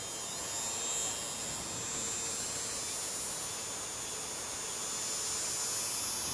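Small electric motor and propeller of a TobyRich Smart Plane Pro toy plane whining in flight, a steady high-pitched whine that wavers slightly in pitch.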